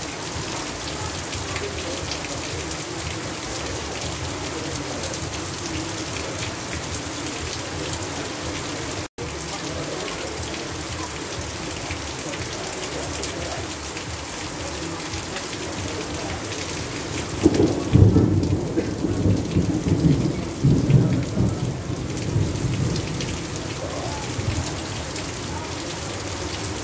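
Heavy, steady rain falling on grass and pouring off a roof edge. About two-thirds of the way in, a roll of thunder rumbles for about five seconds.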